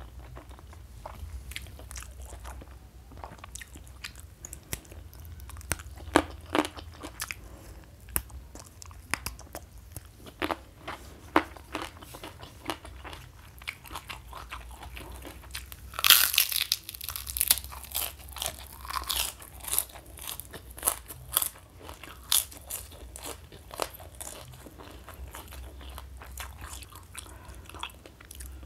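Close-miked eating sounds: wet chewing and small mouth clicks, then a loud crunch a little past the middle as a kerupuk (fried cracker) is bitten, followed by a run of crunching as it is chewed.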